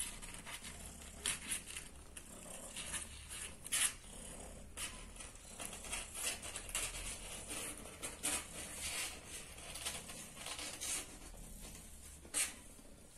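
Irregular rustling and crinkling of crumpled paper bedding in a cardboard box as newborn kittens and their mother shift about on it, with a few sharper crackles.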